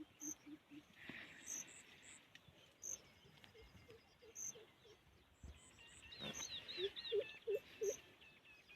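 Outdoor animal calls: runs of short, low pitched calls repeated several times a second, mixed with high, thin chirps and a burst of bird-like chirping about six seconds in.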